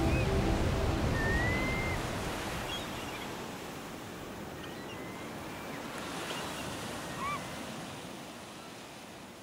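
A steady rush of water that fades out slowly, with a few faint high chirps over it.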